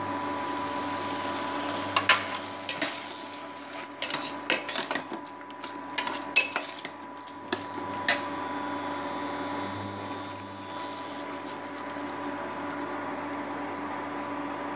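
Perforated steel spoon scraping and clinking against a stainless steel pot as mutton and onion-tomato masala are stirred, a run of sharp knocks for the first half. After that only a steady hum remains, from the induction cooktop the pot sits on.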